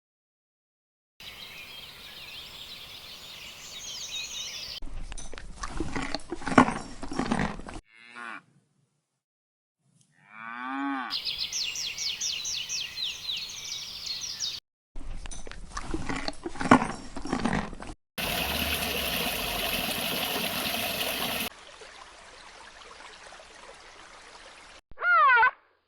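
Cattle mooing, cut together with other short animal calls and separated by silent gaps. Two loud low calls come about 5 and 15 seconds in, and near the end an arching, pitched call begins.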